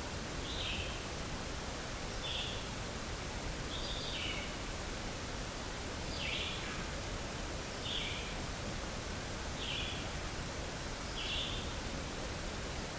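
An animal's short, high call repeated evenly, about once every one and a half to two seconds, some calls dropping slightly in pitch, over a steady background hiss.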